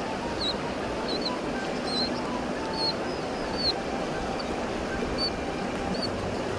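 Swollen river rushing steadily past the bank in a continuous wash of moving water, with short high bird chirps every second or so.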